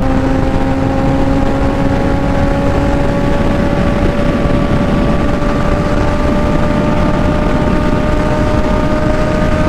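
Honda 650 sportbike's inline-four engine pulling hard in a high gear, its pitch rising slowly and steadily as the bike accelerates toward 200 km/h. Heavy wind rush across the helmet and camera runs under it.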